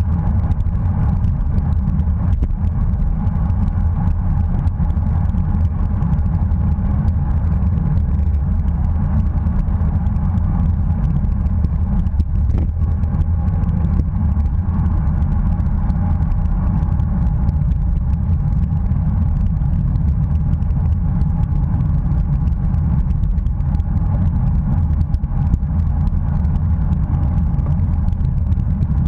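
Wind buffeting the microphone of a bicycle-mounted action camera while riding at race speed: a steady low rumble that never lets up.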